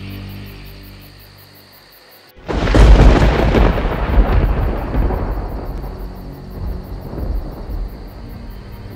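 A loud thunderclap: a sudden crack about two seconds in that rolls into a deep rumble and dies away over the next several seconds. Soft, eerie background music runs underneath.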